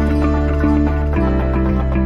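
Background music: a melody of short repeated notes over held low bass notes, the harmony shifting about a second in.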